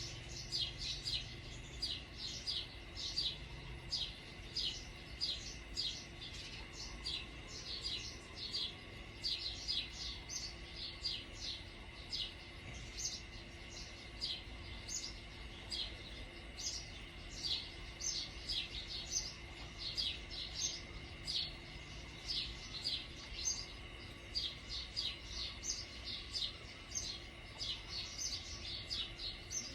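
Small birds chirping rapidly, several short, sharp chirps a second, over a faint steady background hum.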